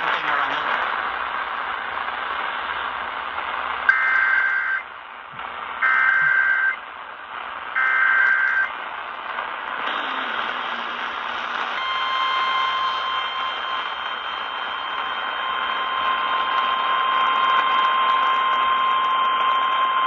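Eton portable radio's speaker playing an Emergency Alert System severe thunderstorm warning over AM static. Three short warbling data bursts come about two seconds apart, starting about four seconds in; these are the alert's coded header. About twelve seconds in, a long steady attention tone begins and holds, with the static hiss underneath throughout.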